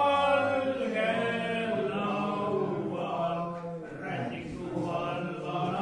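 A group of men singing a song together, holding long notes.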